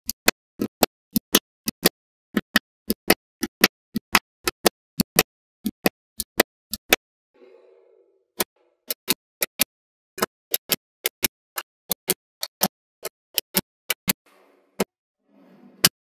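Small neodymium magnetic balls clicking sharply as they snap together one at a time, two or three clicks a second. The clicking pauses twice, about seven seconds in and again near the end, and faint rustling fills those pauses.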